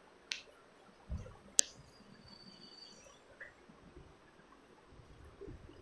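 A few sharp clicks and a light knock from a whiteboard marker and duster being handled, the loudest click about a second and a half in. Near the end comes faint dry rubbing of the duster wiping the whiteboard.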